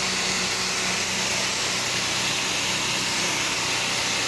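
Pressure-washing rig spraying soft-wash cleaning solution: a steady hiss of spray from the nozzle over a faint, even machine hum.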